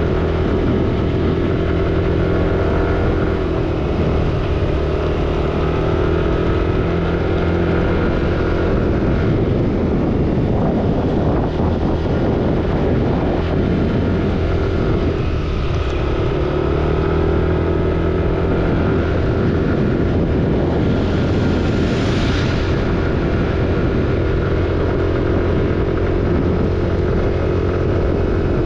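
Motorcycle engine running at road speed, its note dipping and rising again a couple of times, over a steady hiss of tyres on a wet road and wind. A brief louder hiss comes about three-quarters of the way through.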